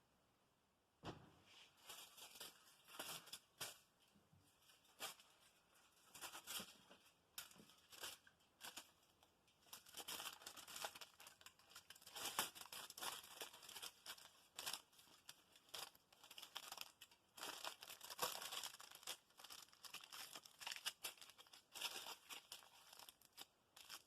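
Aluminium foil being crumpled and pressed around a part to mask it for painting: faint, irregular crackling and crinkling that starts about a second in.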